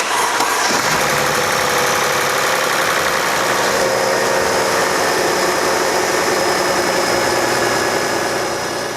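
Mercedes-Benz M272 V6 engine starting and then running steadily at idle, with the ignition coil connectors on cylinders 4 and 5, the cause of its misfires, now locked in. The sound fades out near the end.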